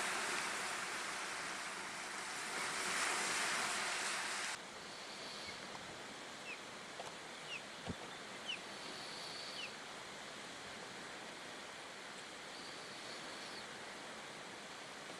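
Small waves breaking and washing up a sandy shore in gusty wind, which cuts off abruptly about four and a half seconds in. A quieter steady hiss follows, with a few short high chirps and a single sharp tap.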